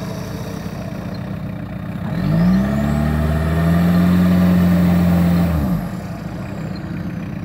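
Engine of an off-road 4x4 bogged down in mud, idling, then revved up sharply about two seconds in. It is held at high revs for about three seconds, then drops back to idle.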